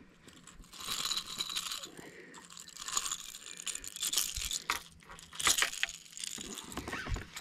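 Handling noise of a just-landed largemouth bass held in hand: four or five bursts of crackly rattling and clicking, each about a second long.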